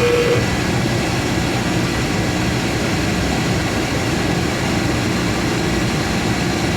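Surface grinder running, its wheel spinning with a steady machine hum and hiss. A steady whine stops about half a second in.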